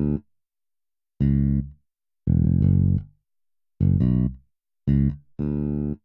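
Electric bass guitar track playing alone through the Black Box Analog Designs HG-2MS tube saturation plugin. It plays about five short phrases of a few notes each, with silent gaps between them.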